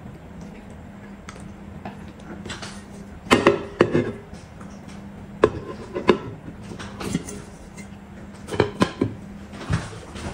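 Metal dome food covers being set down over plates, clinking and clattering against the dishes in several clusters of sharp knocks, over a low steady hum.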